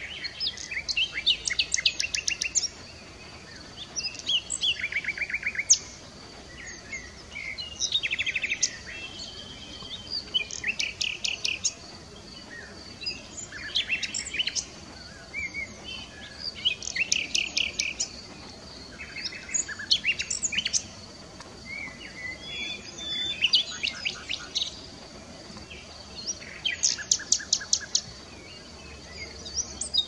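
Nightingale singing: a run of varied song phrases, each a second or three long, built from rapid repeated notes and trills, with short pauses between phrases.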